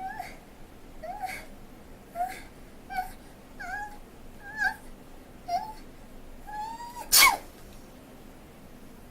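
A woman's acted sneeze build-up: short high-pitched squeaky hitching breaths, about one a second, then a longer rising squeak and one loud sneeze about seven seconds in.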